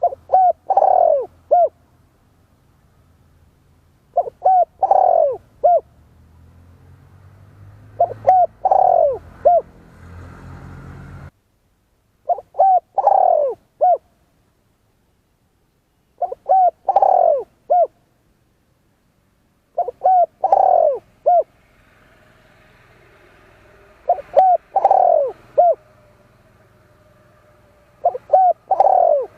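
Spotted dove cooing: a short phrase of three or four coos, repeated about every four seconds, eight times in all.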